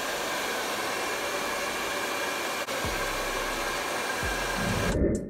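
Handheld hair dryer blowing steadily, an even rush of air with a steady motor hum in it; it cuts off abruptly about five seconds in.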